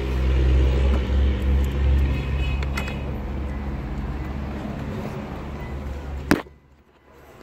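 Steady low mechanical hum, like a running engine, with a few faint clicks of parts being handled; it stops abruptly after a sharp click near the end.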